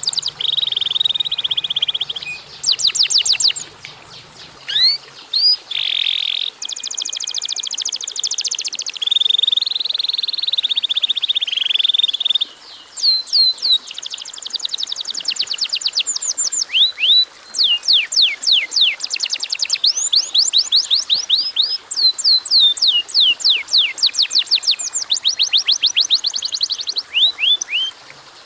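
Domestic canary singing vigorously: a long song of rapid buzzy trills and fast runs of downward-sweeping notes, broken by a few brief pauses.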